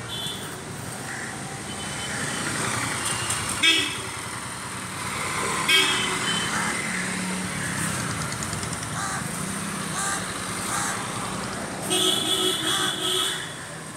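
Street traffic: motor scooters and motorcycles passing with a steady engine hum. Short horn toots come about four and six seconds in, and a burst of honking near the end as two-wheelers ride by.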